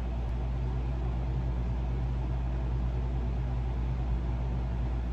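Air conditioner running: a steady low hum under an even whooshing noise.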